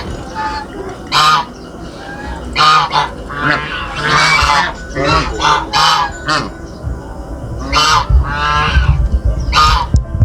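Farmyard waterfowl giving loud, harsh honking calls over and over, about a dozen short calls in quick, irregular succession.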